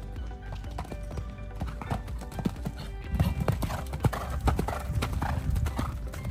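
Hoofbeats of a horse cantering on sand, the strikes coming thicker after about three seconds, with background music playing throughout.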